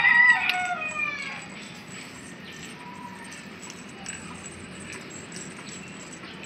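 Rooster crowing, the drawn-out end of its crow falling in pitch and fading out about a second and a half in.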